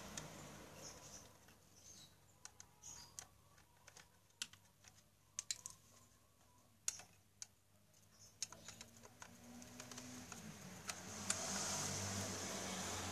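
Scattered light clicks and taps of a screwdriver and plastic fan-housing parts being handled while an electric fan's motor housing is taken apart, with a denser rustling stretch near the end.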